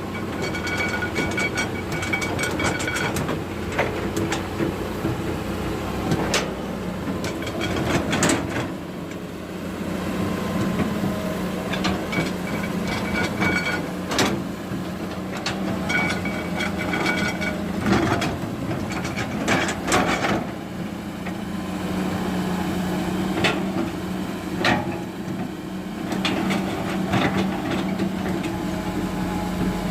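Excavator working: its engine running steadily under frequent sharp knocks and clanks, with a high whine that comes and goes in spells of a second or two.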